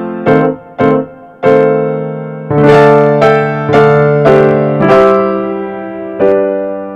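Background piano music: single notes and chords struck about every half second, each fading away, with the last chord left ringing near the end.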